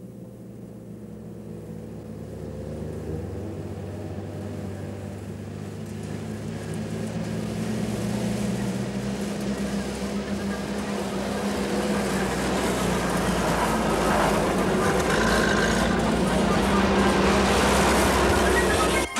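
Engines of canvas-topped Soviet UAZ jeeps driving on an unpaved road, growing steadily louder as they approach, with tyre and road noise rising toward the end.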